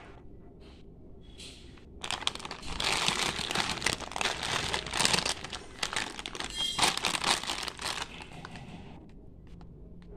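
Plastic candy packet crinkling as it is handled and opened, loud for about six seconds starting about two seconds in, with a few lighter crinkles before and after.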